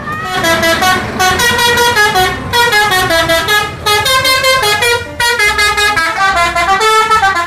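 Tour bus's multi-tone musical air horn ('telolet' horn) playing a tune of quick stepped notes, in several phrases with short breaks between them.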